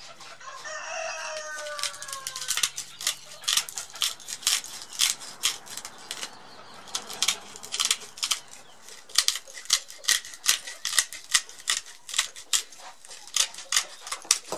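Hand metal snips biting through the edge of an abrasive cutting disc in a run of sharp crunching snips, about three or four a second. A rooster crows near the start, one call falling in pitch over about a second and a half.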